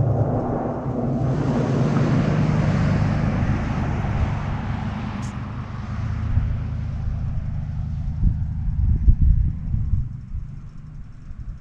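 An engine running steadily with a low hum, joined for several seconds by a rushing hiss that fades out, then uneven low rumbling near the end.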